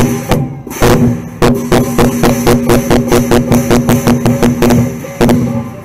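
Southern Chinese lion dance percussion: a big drum struck with clashing cymbals and a ringing gong, a few heavy strokes and then a fast, even beat, breaking off briefly near the end.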